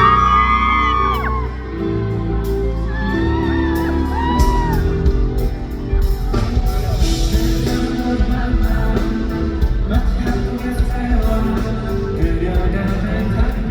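Pop music played loudly over a concert hall's sound system, with a crowd of fans giving high, rising-and-falling screams over the first few seconds; a drum beat comes in about four seconds in.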